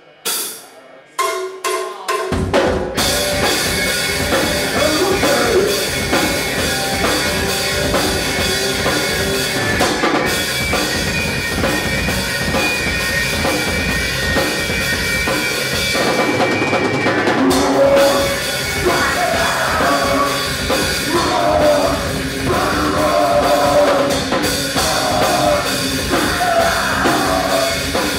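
Live rock band with electric guitars, bass guitar and drum kit starting a song: a few separate hits, then the full band comes in about two seconds in and plays loud. The bass and kick drum drop out briefly about sixteen seconds in before the band comes back in.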